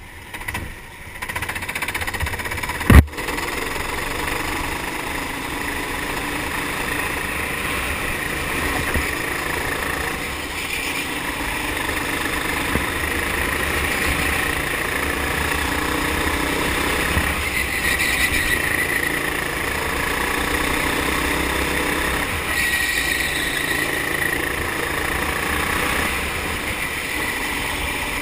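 Four-stroke kart engine running on the track, heard from on board, its note shifting through the lap. A single sharp knock about three seconds in.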